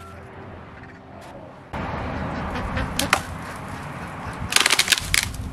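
Tree branches and leaves rustling as the tree is pulled on, then a burst of sharp cracking and snapping near the end as dead branches break.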